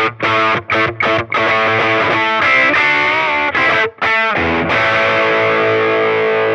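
Gibson SG electric guitar played through a distortion pedal into a small Fender tube amp: short, choppy distorted chords, then a bent note with vibrato, then a full chord left ringing out.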